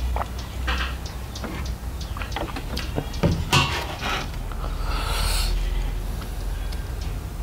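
Close-up eating sounds: someone chewing and crunching food, with scattered irregular clicks and a louder cluster of crunches midway.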